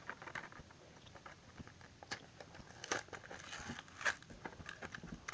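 Hot Wheels plastic blister pack being pulled open by hand from its cardboard backing card: faint crinkling and crackling, with a few sharper cracks about two, three and four seconds in.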